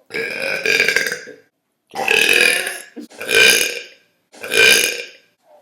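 A girl burping loudly four times in quick succession, each burp long and drawn out, about a second apiece.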